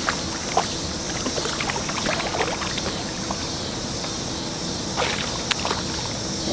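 A hooked bass splashing at the surface at the water's edge: a few short, sharp splashes over a steady rushing background.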